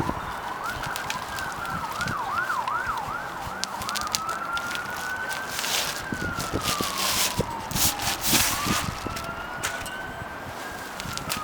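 Ambulance sirens: a fast up-and-down yelp for the first few seconds, switching to a slow wail that rises and falls twice. Scattered light clicks and clatter of parts being handled run alongside.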